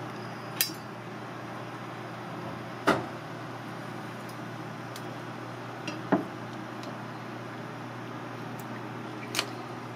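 Kitchen clatter: four short, sharp knocks spread a few seconds apart over a steady low hum.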